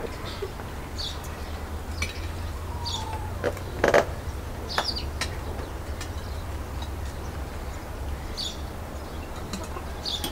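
A small bird chirping, one short high chirp every couple of seconds, over a low steady hum. A brief loud knock about four seconds in.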